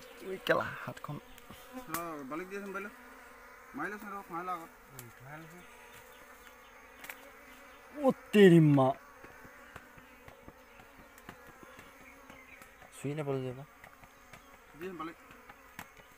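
Flying insects buzzing close to the microphone in several passes that swoop up and down in pitch, the loudest about eight seconds in, over a faint steady hum.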